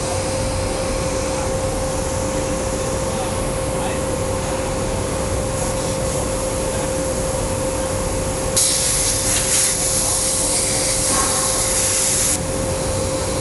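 ESAB CNC plasma cutter cutting 1/4-inch mild steel. For the first eight and a half seconds, with the arc off, there is only a steady machine hum with a constant tone. Then the plasma arc fires with a loud hiss, cuts for about four seconds and cuts off abruptly.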